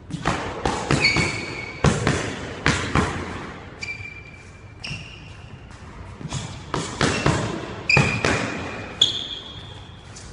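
Sharp smacks of gloved punches and kicks landing during kickboxing sparring, in two flurries, echoing off the walls of a squash court. Athletic shoes squeak briefly on the hardwood floor several times between the strikes.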